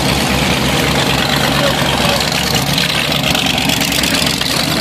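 Several cruiser motorcycles passing slowly in a line, their engines running at low revs with a steady low engine note.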